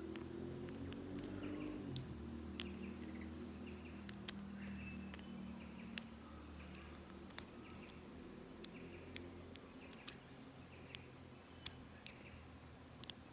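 Bees buzzing in a low, steady drone, with faint bird chirps and scattered sharp little clicks.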